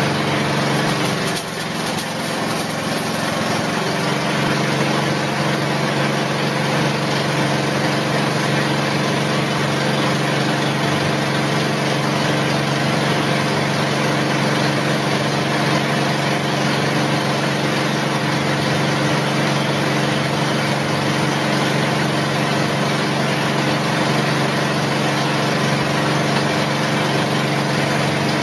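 A motor-driven machine running steadily with a constant hum under a noisy hiss. The level dips briefly about a second and a half in, then holds even.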